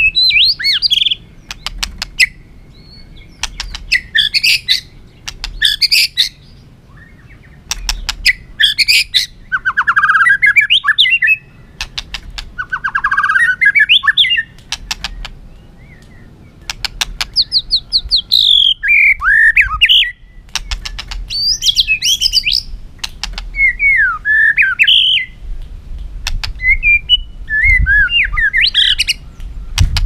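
White-rumped shama singing a varied challenge song: a string of loud phrases of whistled and sliding notes, many led by fast rattling clicks, each phrase a second or two long with short pauses between.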